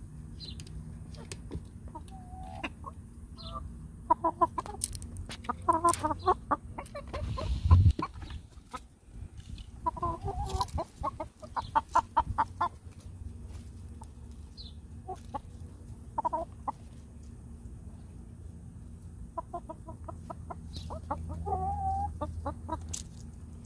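Dominique hens clucking in several short runs of quick, repeated notes, with pauses between the runs. One loud low thump comes about eight seconds in.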